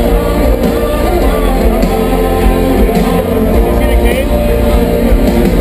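Live rock band music played loudly through a concert PA, with guitar and heavy bass, and voices over it.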